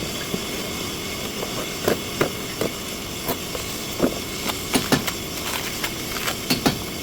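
Hyundai Azera on the move: a steady running and road noise with irregular clicks and knocks, about two or three a second, typical of a worn front CV joint.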